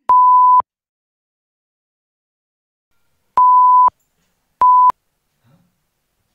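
Three electronic beeps, each one steady pure tone: one near the start, then two close together a little past the middle. They are a dubbed-in sound effect for the TV remote's buttons being pressed.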